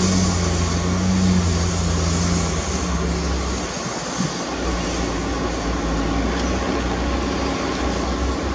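Heavy diesel engine of earthmoving equipment running steadily under noise, its low note dipping briefly about halfway through before carrying on.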